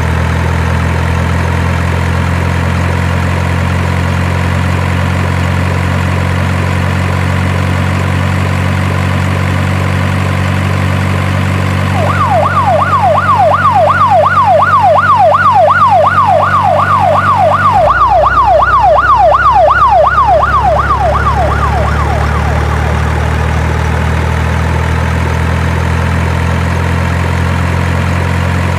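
A steady low truck-engine drone, with a fast yelping siren sweeping up and down about three times a second for roughly ten seconds midway; the engine note shifts partway through the siren.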